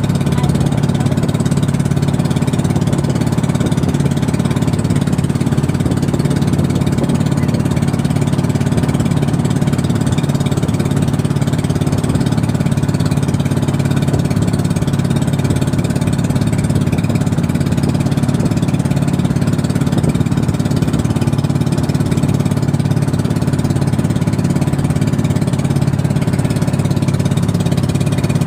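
Small engine of an outrigger boat (bangka) running steadily under way.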